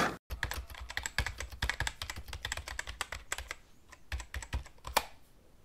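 Typing on a computer keyboard: a fast, uneven run of key clicks, with one louder click about five seconds in, then the keys stop.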